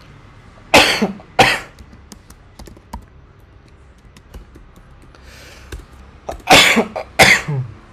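A man coughing, two coughs about a second in and two more near the end, with faint keyboard clicks in between.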